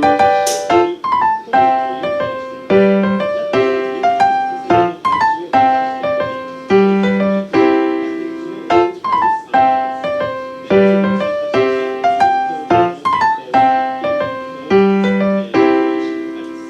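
Background piano music: a calm, repeating pattern of notes in regular phrases.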